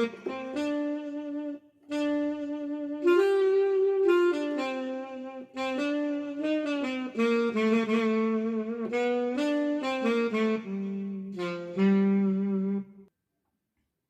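Korg Pa300 arranger keyboard playing a slow melody on a saxophone-like wind voice, one held note after another, stopping abruptly about a second before the end.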